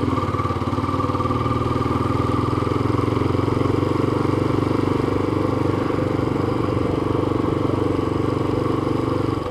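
Yamaha FZ25's single-cylinder engine running at a steady pitch as the motorcycle rides along a street, heard from on the bike.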